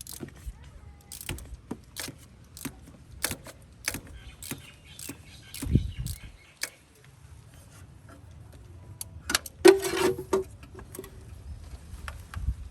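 Metal hand tools and parts clicking and clinking in a car's engine bay during work on the ignition side, with a low thump about six seconds in and a short louder rattle near the ten-second mark.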